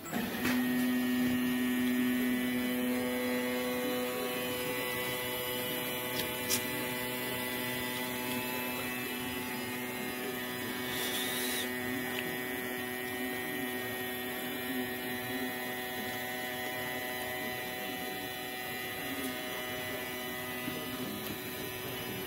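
Homemade CNC gantry's drive motors humming as they carry a spring-loaded ballpoint pen across a plywood sheet, marking out parts. The hum is a steady set of tones whose pitch shifts as the head changes moves, loudest in the first four seconds. A brief hiss comes about eleven seconds in.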